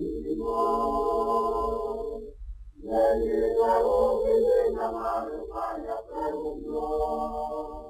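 Unaccompanied group singing: voices holding sung notes in phrases, with a short break about two and a half seconds in and a brief dip near six seconds.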